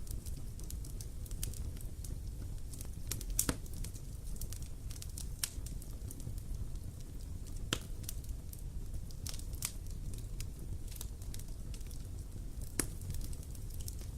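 Wood bonfire burning, with sharp crackles and pops scattered irregularly over a low steady rumble; a few louder pops stand out every couple of seconds.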